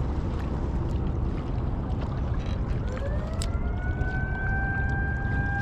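A siren winds up about three seconds in: its pitch rises for about a second, then holds one steady note. Underneath is a steady low rush of river current and wind.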